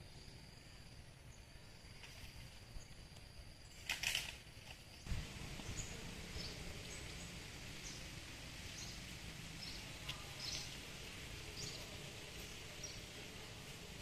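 Outdoor forest ambience: a steady high insect drone at first, a brief loud noise burst about four seconds in, then a series of short high chirps over a low background hum.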